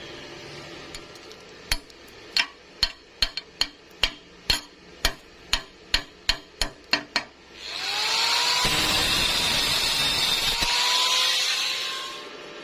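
About a dozen hammer blows, irregular and quickening toward the end, then a power tool running for about four seconds, its whine rising as it spins up and then holding steady.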